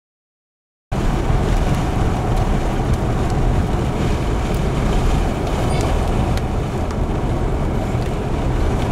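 Silent for about the first second, then a loud, steady wind noise on the microphone starts suddenly: a low rumble with hiss over it, from storm winds blowing across the open field.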